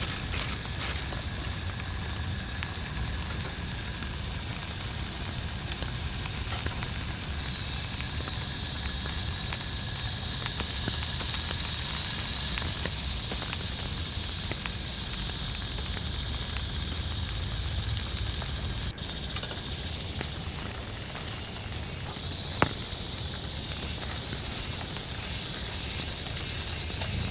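Steady rain falling with a constant pattering hiss, broken three times by a single sharp tick.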